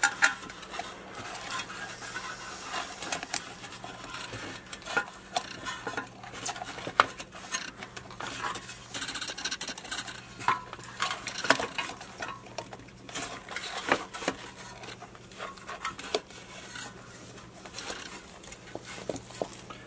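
Recoil starter pulley of a Tecumseh small engine being wound round by hand against its rewind spring: irregular metal clicks, ticks and light scraping throughout.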